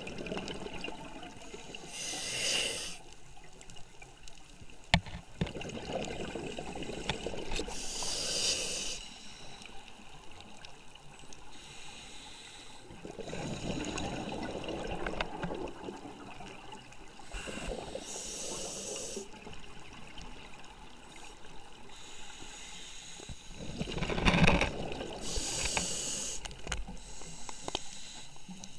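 Scuba diver breathing through a regulator, heard underwater: a few hissing breaths and swells of gurgling exhaled bubbles over a steady water wash.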